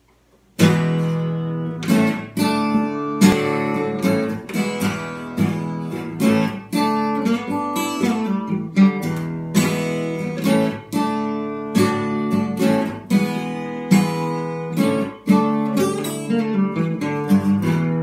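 Acoustic guitar played live, starting about half a second in: chords strummed and picked in a loose rhythm, each stroke left to ring.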